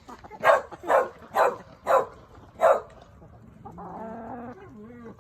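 A hen squawking, five short, loud squawks about half a second apart, then a quieter, longer, lower call.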